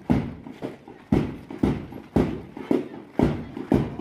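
Steady marching drum beat: low thumps about two a second, with lighter taps between some of them, keeping time for a march past.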